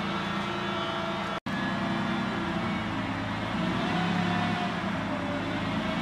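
Large military wheeled vehicle's engine running steadily at idle, broken once by a split-second gap about a second and a half in.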